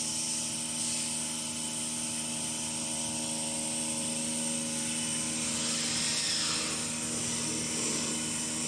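Paper towel and facial tissue folding machine running steadily: a whirring hum with a hiss over it. Light rustling of the tissue paper being handled comes and goes over it.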